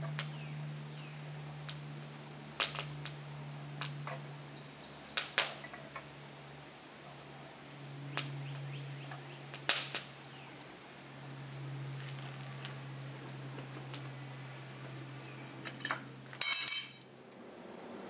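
Irregular sharp clicks and clanks of a steel crucible and shank being handled during an aluminum pour, over a steady low hum. A short high-pitched sound comes near the end.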